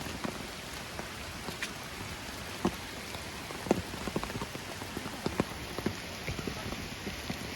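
Heavy rain falling steadily, an even hiss with many sharp, irregular drop hits close by.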